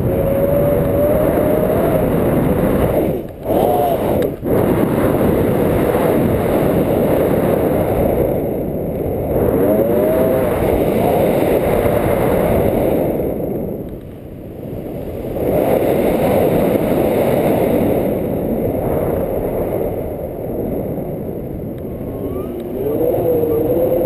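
Airflow buffeting the camera microphone in flight under a tandem paraglider: a loud, steady rushing that briefly cuts out twice about three to four seconds in and eases around the middle.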